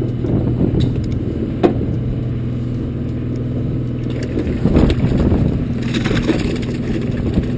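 Party boat's engine running with a steady low hum, with a sharp click about a second and a half in and bursts of rustling and handling noise around five and six seconds in.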